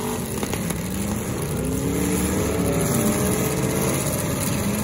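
Several demolition derby cars' engines running and revving as the cars push around in the mud, their pitch rising and falling.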